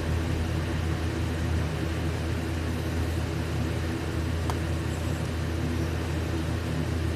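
Low, steady rumble of a man's heavy snoring, his soft palate vibrating as he sleeps on his back with his mouth open.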